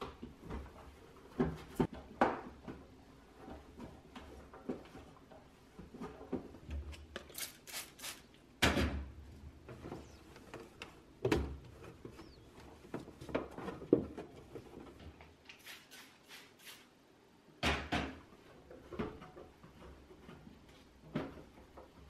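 Plastic refrigerator door bins and shelves being handled and wiped with a microfiber cloth: irregular knocks and clicks of plastic with cloth rubbing between them, the loudest knock about nine seconds in.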